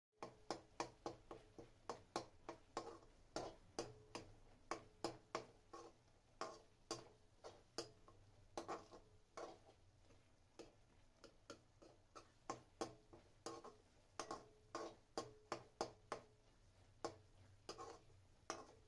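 Slotted metal spatula scraping and knocking against a metal kadai while peas and chopped tomatoes are stirred: an uneven run of sharp clicks and scrapes, about three a second, quieter for a stretch in the middle.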